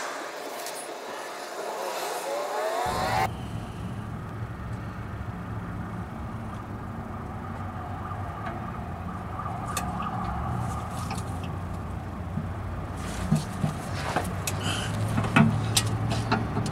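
A hiss for the first three seconds gives way to a steady low hum. From about 13 seconds in come a few light clicks and knocks of hands working at the transmission pan under the truck.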